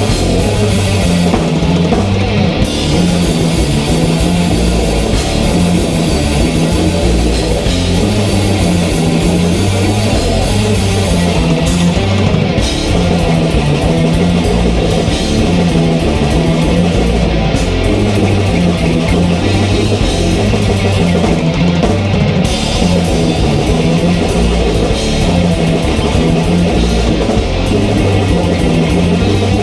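Rock band playing loud, heavy music without a break: electric guitar over a drum kit with a steady driving beat.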